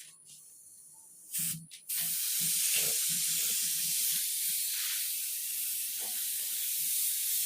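Compressed-air paint spray gun spraying paint: a brief burst of hiss, then, about two seconds in, a steady high hiss as the trigger is held.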